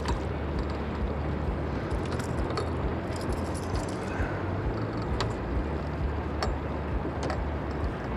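A boat motor running steadily under wind noise, with scattered light clicks and rattles.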